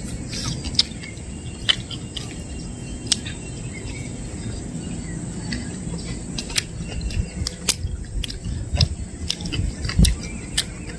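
People chewing and eating pizza: short, irregular clicks and smacks of eating over a steady outdoor background with bird chirps and insects.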